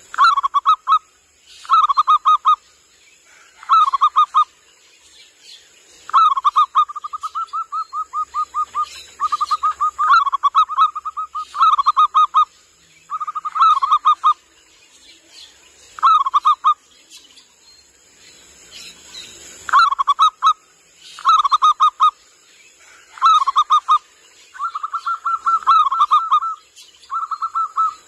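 Zebra dove (perkutut) cooing: bursts of quick, staccato pulsed coos repeated every second or two, some runs lasting several seconds.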